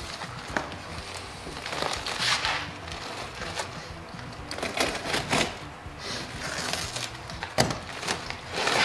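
Rusted-through floor pan sheet metal being torn and broken out by hand, in irregular crunches and crackles about a second or two apart. The metal gives way this easily because it is rusted through.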